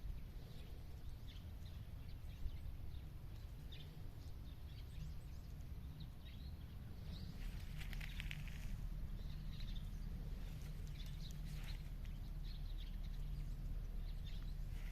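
Outdoor ambience on a country walk: a steady low rumble with scattered faint crunches and rustles, and a brief denser rustle about eight seconds in.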